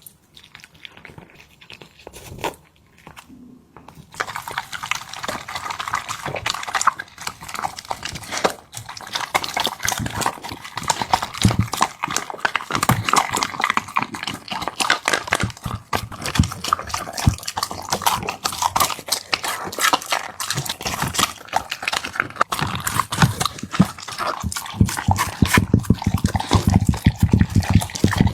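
A dog eating soft, wet food from a bowl, with rapid, irregular chomping and slurping that starts about four seconds in and keeps up without a break.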